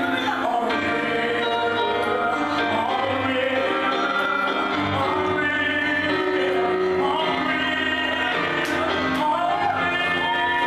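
Gospel song playing: a lead voice sings a melody that bends and glides over steady low accompaniment.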